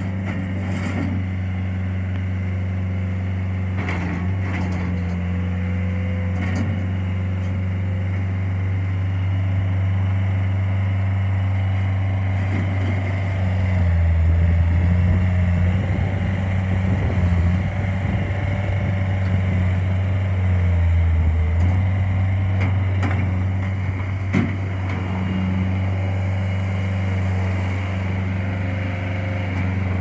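Bobcat S175 skid steer loader's diesel engine running steadily, getting louder for stretches in the middle as the loader works its bucket in a gravel pile, with a few short knocks.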